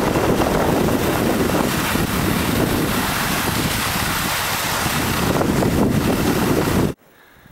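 Loud wind rush buffeting the microphone of a camera skiing downhill, mixed with skis scraping over packed snow. It stops abruptly near the end.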